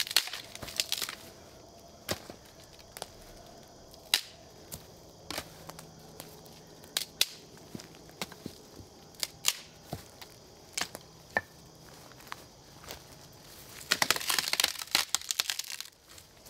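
Dry twigs and sticks cracking and snapping in scattered single sharp snaps, with a dense run of crackling near the end.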